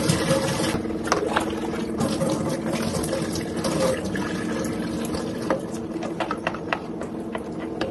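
Water pouring and splashing steadily as long hair is rinsed by hand during a hair wash.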